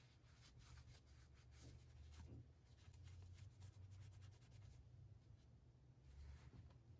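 Faint rubbing and scratching of a terry cloth towel polishing a metal chess piece, in quick scratchy strokes that ease off about halfway and pick up again near the end, over a low steady hum.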